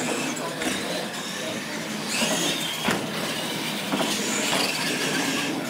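Radio-controlled monster truck driving over a concrete floor: motor and gear whine that swells twice, about two and four seconds in, over the rolling noise of the big tyres.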